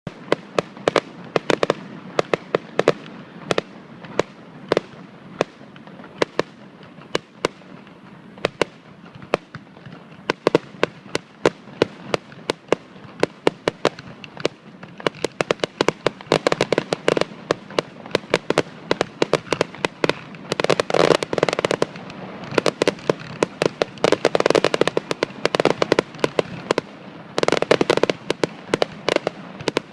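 Fireworks display: a constant run of sharp bangs and pops, irregularly spaced at first. In the second half they pack into dense rapid volleys, around twenty seconds in, again a few seconds later, and near the end.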